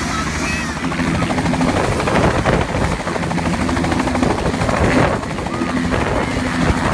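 Air ambulance helicopter lifting off at close range: a rapid, even chop of the rotor blades over a steady engine hum.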